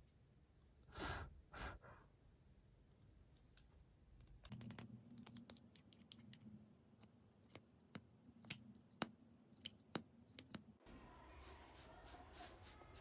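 Soft ASMR handling sounds of makeup tools and containers: two brief swishes about a second in, then a run of light, sharp clicks and taps.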